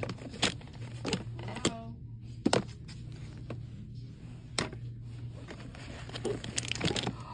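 Small store-bought items being handled and set down: a scattering of short, sharp clicks and knocks over a steady low hum.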